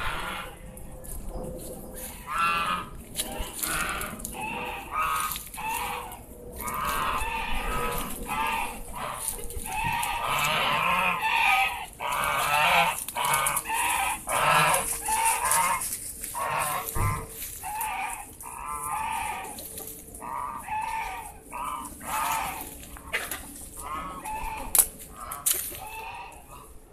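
Domestic fowl calling over and over in runs of short calls with brief pauses between them.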